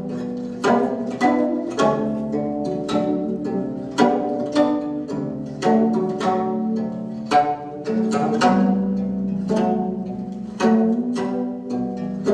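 Music of plucked strings: a melody of separate plucked notes, each fading after its attack, over held lower tones.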